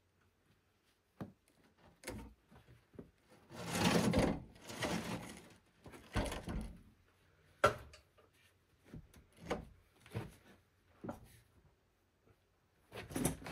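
Parts being handled and shifted at a workbench: irregular knocks and clicks, with a longer rubbing scrape about four seconds in and a sharp knock near the end.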